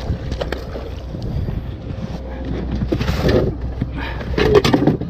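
Wind buffeting the microphone and water splashing as a hooked red drum thrashes at the surface beside a small boat, then a few knocks and clatter about four seconds in as the landing net is grabbed off the deck.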